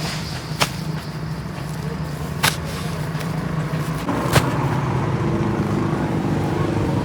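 An engine running steadily with a low hum; its sound thickens a little about four seconds in. Three sharp knocks come about two seconds apart.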